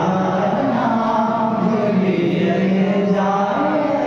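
A man singing a naat, a devotional Urdu poem in praise of the Prophet, unaccompanied into a microphone, holding long melodic notes that slide between pitches.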